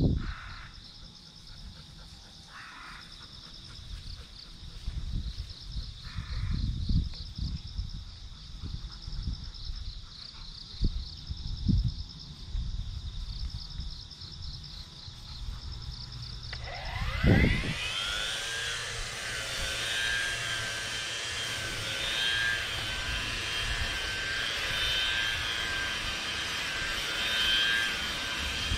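Autumn insects chirping in a steady pulsing trill. About seventeen seconds in, a cordless brush cutter's electric motor spins up with a quick rising whine, then runs steadily, its pitch wavering slightly as it cuts grass.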